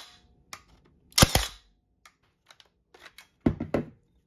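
Milwaukee M18 FUEL 18-gauge brad nailer firing a nail into a wood board: one sharp snap about a second in. The tool is running on a Makita 18V battery through an adapter, and it fires normally. A few duller knocks near the end.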